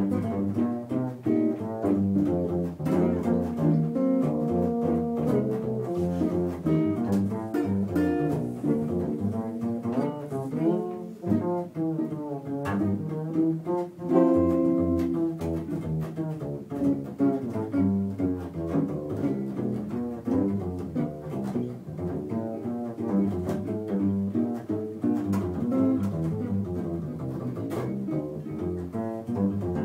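Live small-combo jazz: a hollow-body electric guitar plays a single-note solo line over a plucked double bass line.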